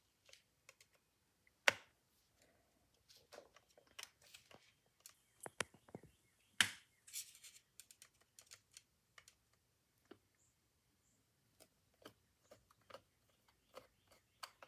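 Scattered small clicks and taps of metal parts and hand tools, with two sharper knocks, about two seconds in and just after six seconds, as the screws are taken out of a wind-up gramophone motor's spring barrel.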